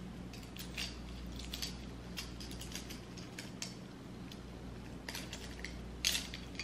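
Silver metal link watch bracelet clinking and clicking as it is handled and worked in the fingers: many small light clicks, with a louder cluster about six seconds in.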